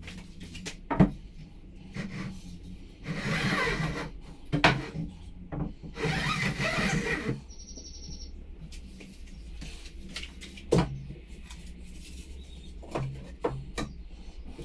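A long metal spirit level and hand tools handled against timber wall studs and a concrete floor: a few sharp knocks, the loudest about a second in, and two scraping slides of about a second each. A brief high squeak comes near the middle.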